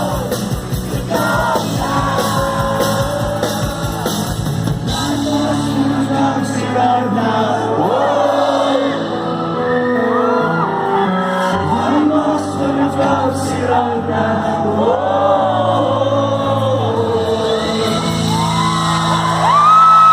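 Live concert performance of a pop-rock song: a male lead voice singing over a band, with yells from the audience. About five seconds in, the dense full-band sound thins to steady held chords under the singing, and a loud high held note comes in near the end.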